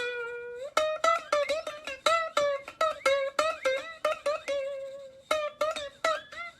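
Music on a plucked string instrument: a quick run of short, bright notes, with one longer held note near the start.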